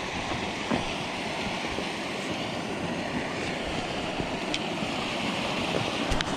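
Steady rushing of a small stream running over a riffle, with a few light knocks near the end as the camera is handled.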